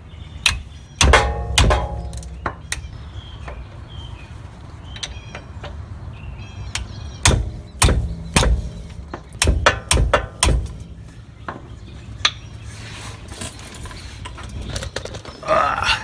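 Hammer blows on a 14 mm wrench fitted to a tight driveshaft flange bolt, sharp metal-on-metal strikes with a brief ring, to break the bolt loose. The strikes come in irregular bunches: several in the first couple of seconds, a quicker run from about seven to ten seconds in, and a last one near twelve seconds.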